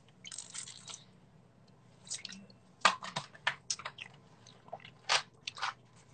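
A man drinking from a bottle, then close-up wet mouth sounds. A brief noisy patch comes near the start, followed by scattered short clicks and smacks of the lips and mouth.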